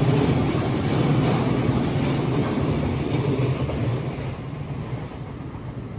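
Container flat wagons of a freight train rolling past on steel rails, a steady wheel-and-rail rumble that fades away from about four seconds in as the last wagon passes and recedes.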